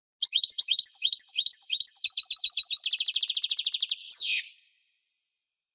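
European goldfinch singing one phrase: a run of quick high twittering notes, a fast rattling trill about three seconds in, and a final note sweeping sharply down.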